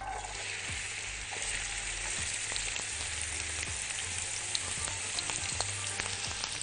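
Chopped onions hitting hot vegetable oil in a cooking pot, setting off a sudden, steady sizzle as they start to sauté.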